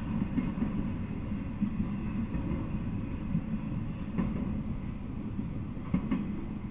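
Intermodal freight train of trailers on flatcars rolling past on the rails and moving off: a steady low rumble with an occasional sharp knock.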